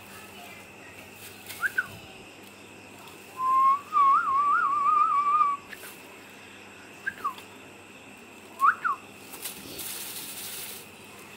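A high warbling whistle that lasts about two seconds, with a few short, high chirps that rise and fall, one before it and a couple after.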